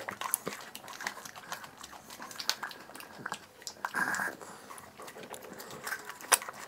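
Slurping and lip-smacking mouth noises as people drink melted ice cream from small cups, with many scattered sharp clicks and a short louder slurp about four seconds in.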